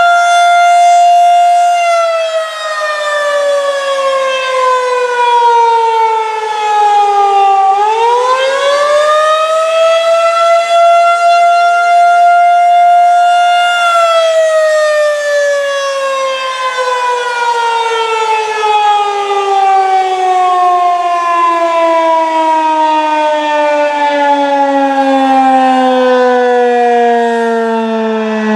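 Federal Signal 2001-SRN "Roundback" outdoor warning siren sounding up close. Its single rich tone holds high, sinks slowly, swoops back up and holds, then falls in pitch slowly and steadily through the second half.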